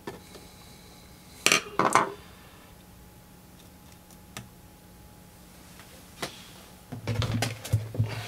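Metal scraping and clicking as a small pick pries apart the scored aluminium can of an old electrolytic capacitor to free its top and expose the internal leads, with two sharp clicks about a second and a half in. A clatter of light metal knocks follows near the end as the capacitor parts are handled.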